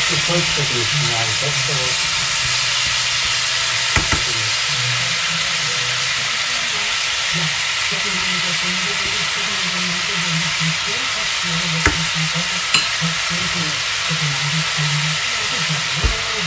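Pork belly and onions sizzling in a frying pan as they are stirred with a silicone spatula, a steady frying hiss, with three sharp knocks spread through.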